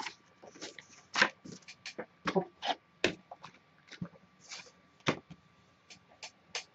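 Sheets of scrapbook paper being handled and set down, a string of irregular short rustles and taps with brief quiet gaps between them.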